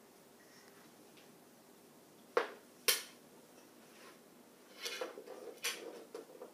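Small flat plastic disc clacking twice on a hardwood floor, about half a second apart, followed a couple of seconds later by a short run of lighter clattering and tapping as it is handled on the floor.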